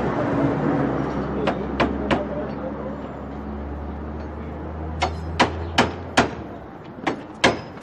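Hammer blows on a chisel driven into a door lock to force the door open. There are three sharp strikes about a second and a half in, then a faster run of about six strikes, two to three a second, near the end.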